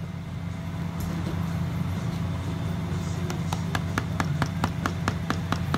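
A stick stirring paint colourant in a small plastic cup, knocking against the cup's sides in a quick, even run of clicks, about five or six a second, from about three seconds in. A steady low hum lies underneath.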